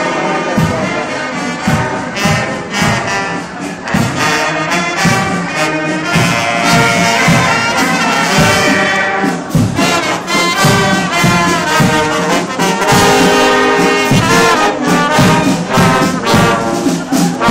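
Marching band playing in the street, brass to the fore over a steady drum beat.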